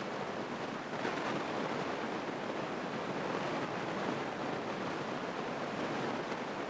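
Steady rushing cabin noise of a small single-engine Grumman airplane on final approach with full flaps down: engine and airflow heard as an even hiss with no distinct engine tone.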